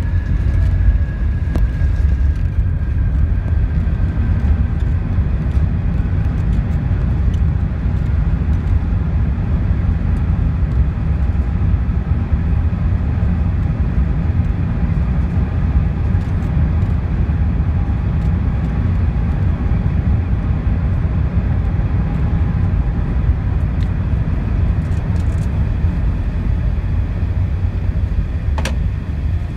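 Airbus A380 landing rollout heard from inside the cabin: a heavy, steady rumble from the wheels on the runway and the engines. A faint engine whine slowly falls in pitch over the first few seconds, and there is a single sharp click near the end.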